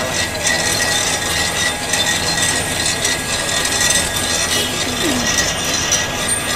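Machinery running with a steady mechanical rattle and grinding, without letup.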